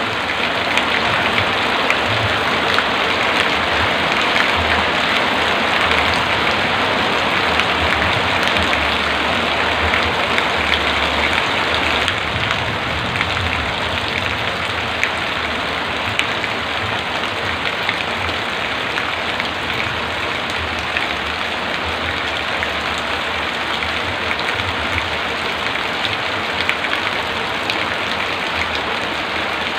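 Heavy rain pouring steadily, a dense hiss of countless drops, easing slightly about twelve seconds in.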